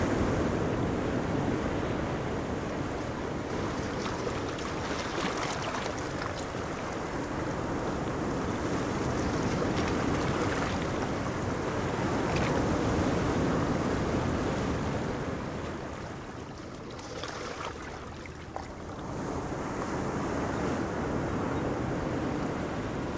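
Small waves washing up on a sandy beach: a steady surf hiss that swells and ebbs, falling quieter for a few seconds about two-thirds of the way through.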